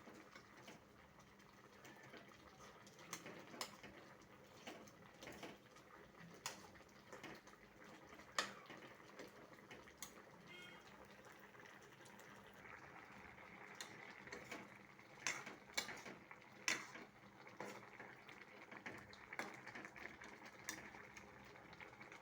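Pot of kohlrabi and potatoes boiling in water: a faint steady hiss with scattered sharp pops and clicks. The hiss grows a little stronger about halfway through.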